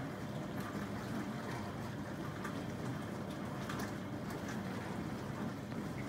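Smeg SA663X dishwasher in its main wash: running steadily, with water spraying and splashing inside the tub.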